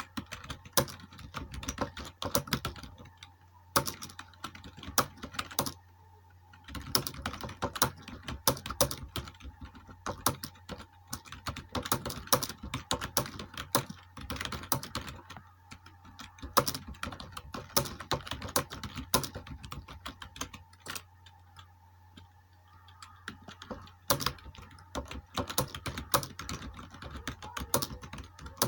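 Touch-typing on a computer keyboard during a timed typing-speed test: rapid, irregular key clicks in runs, broken by short pauses, over a low steady hum.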